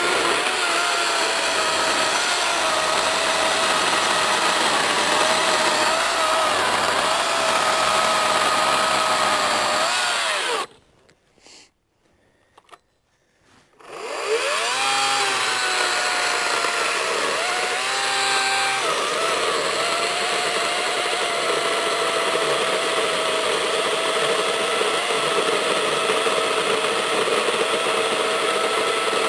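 Echo DCS-5000 56V battery chainsaw cutting through a log, a steady electric motor whine under the chain noise. About ten seconds in the motor winds down and stops, there are a few seconds of near silence, then it spins up to a higher pitch with the saw out of the wood and drops lower again as it goes back into the cut.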